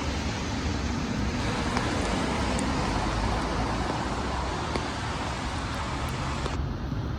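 Steady city traffic noise: a continuous rumble and hiss of passing road vehicles. The upper hiss dulls suddenly near the end.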